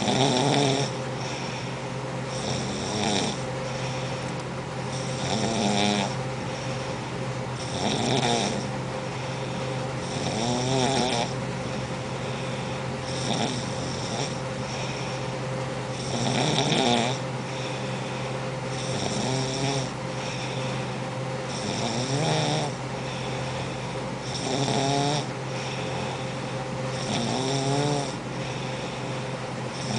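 A woman snoring loudly in a steady rhythm, one snore about every two and a half to three seconds, each a rattling, pitched breath.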